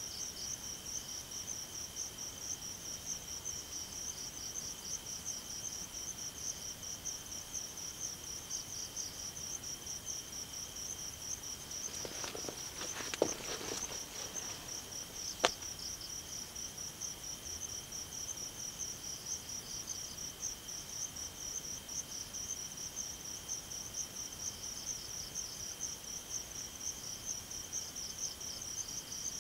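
Night insect chorus, crickets and the like: a dense, rapidly pulsing high chirping over a steady high-pitched buzz. About halfway through, a brief rustle and two sharp clicks about two seconds apart stand out above it.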